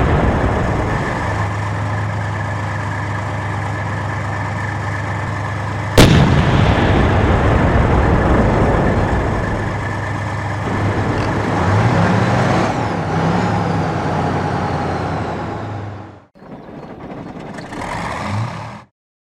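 Military tank engine running with a steady low drone, with one sharp cannon shot about six seconds in. The engine pitch rises and falls around twelve seconds; the sound cuts off suddenly near sixteen seconds, and a short stretch of similar engine noise follows before it stops.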